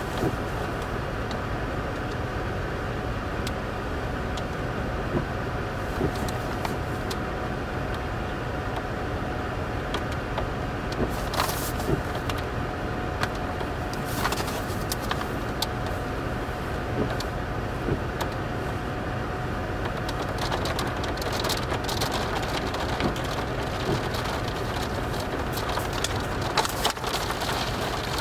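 Scattered sharp knocks of hailstones, about an inch across, and rain striking a stopped vehicle's roof and windshield, heard from inside the cabin over a steady low rumble and a faint steady hum.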